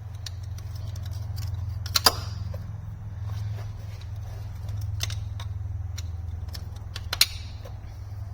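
A few sharp metallic clicks and clinks of hand tools on metal, loudest about two seconds in and again near the end, over a steady low hum.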